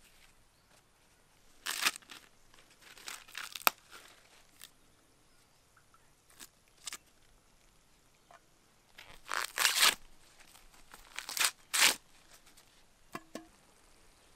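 Green husks being torn off fresh ears of sweet corn by hand: several separate rough ripping pulls with pauses between them, the loudest rips in the second half.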